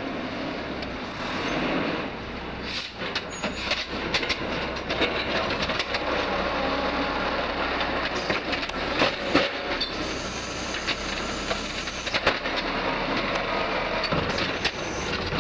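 Automated side-loader garbage truck working its lifting arm: the engine runs steadily while the arm grips a wheeled trash cart, raises it, tips it into the hopper and lowers it again, with repeated clanks and bangs of the cart and arm. A high whine sounds for about two seconds just past the middle.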